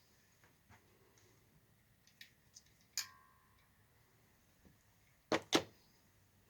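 Scattered clicks and knocks of parts and tools being handled: a few light ticks, a sharp metallic click with a brief ring about three seconds in, then two louder knocks in quick succession near the end.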